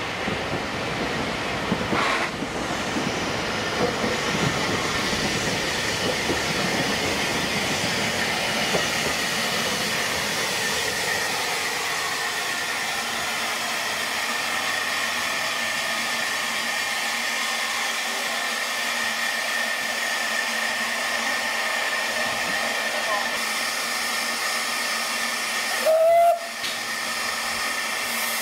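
Narrow-gauge steam tank locomotive Taliesin (Ffestiniog Railway) rolling slowly in with its train, the wheel rumble and knocks fading as it comes to a stand, leaving a steady hiss of steam. One short, loud whistle toot about 26 seconds in.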